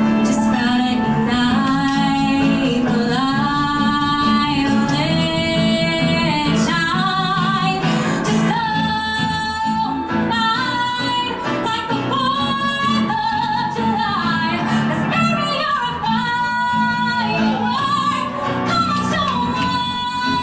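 A woman singing a pop song live through a microphone with piano accompaniment, holding several long notes.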